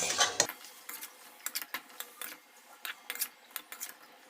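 Spoon or spatula clicking and scraping against a kadai as fried broccoli is stirred into the masala, a dozen or so irregular light clicks over a faint sizzle.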